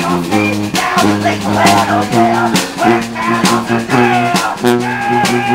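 Upbeat instrumental intro music with a steady beat over a bass line and melody.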